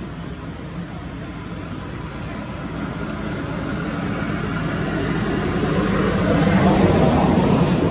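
A motor vehicle passing by, its engine and road noise building slowly to a peak near the end and then beginning to fade.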